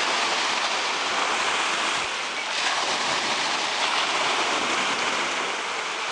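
Sea surf washing onto the shore in a steady rush, easing slightly about two seconds in and building again.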